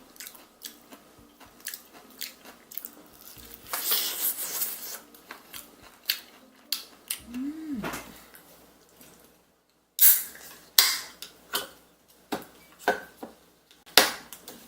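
Biting into and chewing crispy battered fried chicken drumsticks: crackling crunches of the fried crust, with a dense run of crunching about four seconds in and several loud sharp bites in the second half.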